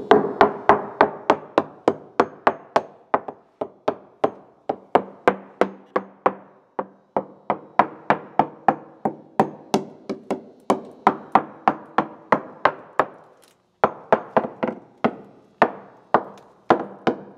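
Ball-peen hammer tapping quickly along a repaired fiberglass boat hull, about four sharp taps a second, pausing briefly near the end. It is a hammer tap test for delamination, and the rebuilt laminate sounds solid.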